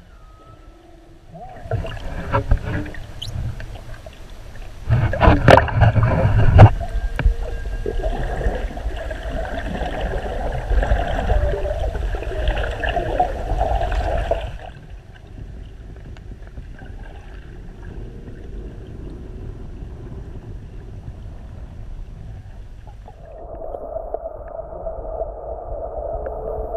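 Underwater sound through an action camera's housing: water rushing and bubbling as the camera moves, loudest with a cluster of knocks and splashes about five to six and a half seconds in, then easing to a quieter wash after about fifteen seconds. Near the end a steady hum with a couple of pitches comes in.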